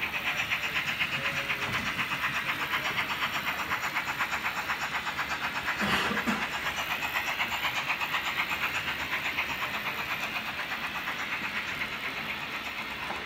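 Märklin H0 model BR 75 steam tank locomotive's sound module giving quick, even steam chuffs as the train runs. There is one sharp click about six seconds in, and the chuffing fades slowly near the end.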